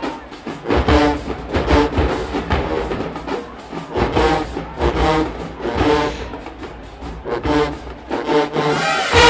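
HBCU marching band playing: short brass phrases over drums, then a loud held brass chord just before the end.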